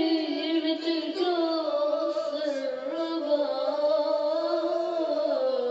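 Arabic music: one long, unbroken melodic line held through the whole stretch, wavering in pitch and sliding down near the end.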